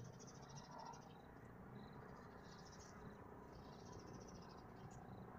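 Near silence with faint crickets chirping in short, pulsing trills that come and go.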